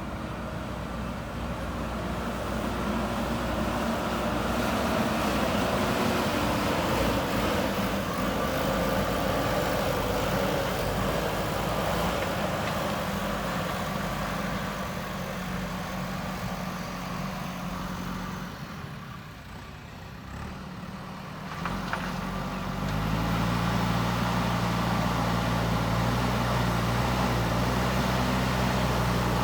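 JCB 3DX backhoe loader's diesel engine running under working load. It fades briefly about two-thirds of the way through, there is a single knock, then it carries on as a steadier, louder low drone.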